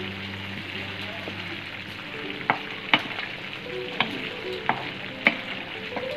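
Potato chunks frying in a thick spice paste (masala) in a frying pan, sizzling as a spatula stirs them, with the spatula clicking against the pan about five times in the second half. The masala is already fried until its oil has separated, and the potatoes are now being fried in it.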